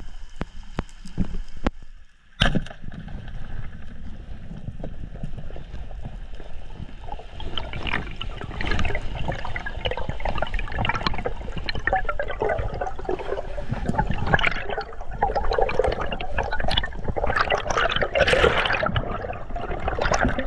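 Underwater water noise, rushing and gurgling around the camera, getting louder and busier from about eight seconds in. About two seconds in there is a single sharp crack: the band-powered speargun firing.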